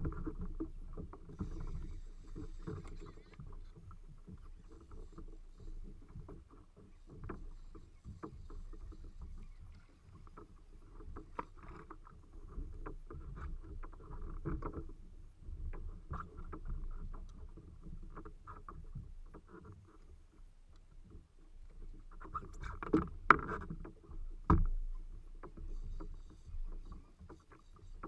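Water sloshing and slapping against a plastic fishing kayak's hull, muffled, with a few sharp knocks about 23 and 24.5 seconds in.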